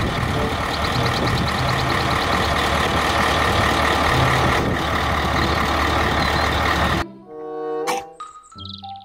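A three-axle dump truck's engine running steadily, with birds chirping briefly about a second in. About seven seconds in it cuts off abruptly and a short tinkling children's music jingle begins.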